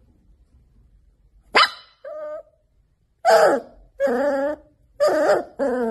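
Puppy barking: a sharp yip about one and a half seconds in and a short one after it, then four barks in quick succession over the last three seconds.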